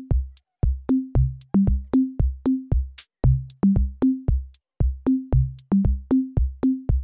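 Background electronic music: a drum-machine beat of bass-drum hits, each with a short low bass note, about three a second, with crisp ticks on top.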